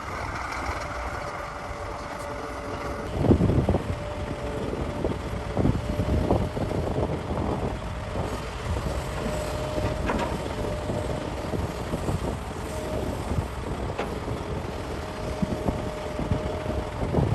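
Heavy diesel machinery working at a mine: an excavator and haul trucks running steadily with a held mid-pitched whine, broken by several heavy thuds, the loudest about three seconds in.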